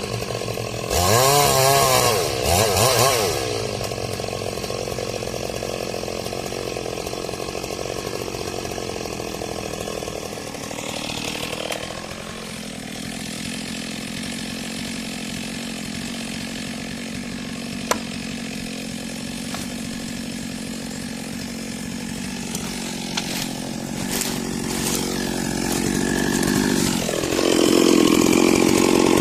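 Chainsaw felling a durian tree: revved hard a few times about a second in, then running steadily for most of the stretch, the engine note dropping about halfway through and rising loudly again near the end.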